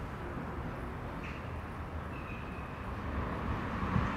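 Steady low background rumble of outdoor ambience, with a brief faint high tone about two seconds in.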